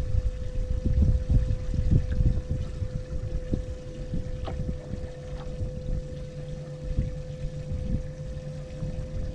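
Water lapping against the hull of a fishing boat, with an uneven low rumble. A steady hum runs throughout, and a lower hum joins about halfway.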